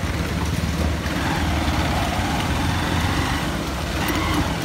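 Motorcycle engine running steadily while riding over a rough, potholed mud road, with wind and road noise on the microphone.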